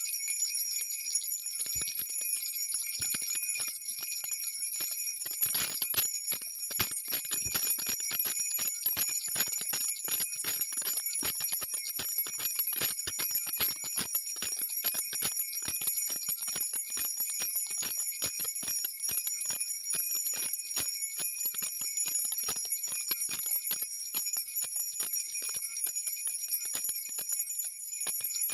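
Steady jingling of sleigh bells, with many small clicks and taps through most of it.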